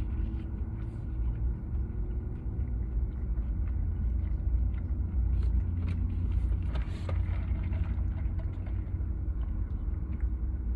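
Steady low rumble of a car idling, heard from inside the closed cabin, with a steady hum over it and a few faint clicks of eating.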